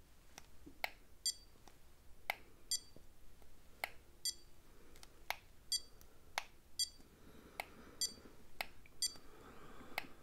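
A small handheld device clicking and beeping over and over: each sharp click is followed a moment later by a short high beep, the pair repeating roughly every second and a half, as in a pretend face scan.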